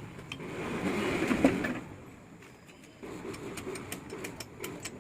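Metal clicks, knocks and rattles of hand work on the open gearbox of a Yamaha RX 135 two-stroke engine, as the gear shift mechanism is fitted and worked. One sharp knock stands out about a second and a half in, with scattered light clicks after a short lull.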